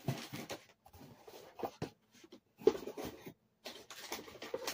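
Rustling and handling noises of cosmetic packaging being picked up and unwrapped, in irregular bursts with a sharper clatter about two and a half seconds in.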